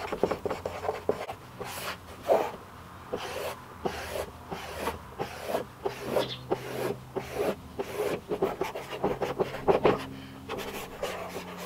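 Marker pen squeaking and scraping on a large white sheet in a run of short, irregular strokes, as words are written and long lines are ruled across it.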